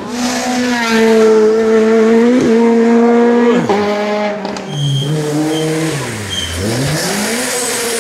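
Rally car engine revving hard on a stage, with two quick drops in pitch about two and a half and three and a half seconds in as it shifts gear. After a break it comes back lower, falls away steeply as the driver lifts off, and revs back up.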